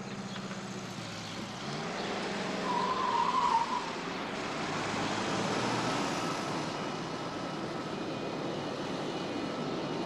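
Aircraft engines running at an airport: a steady rushing noise that swells about two seconds in, with a brief wavering whine about three seconds in, the loudest part. A car engine's low hum fades out in the first couple of seconds.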